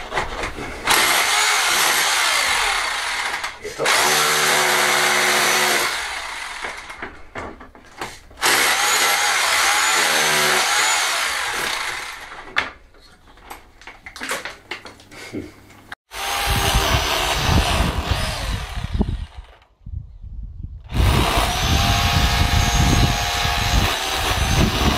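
Corded electric drill boring into a wall in about five runs of a few seconds each, with short pauses between, its motor giving a steady high whine: fixing holes for an air-conditioning unit's mounting plate, then, from about 16 seconds in, drilling into the outside stone wall, where the runs carry more low rumble.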